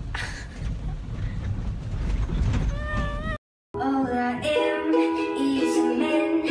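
Low, steady road rumble inside a moving car for about three seconds, then a sudden cut to near silence and upbeat background music.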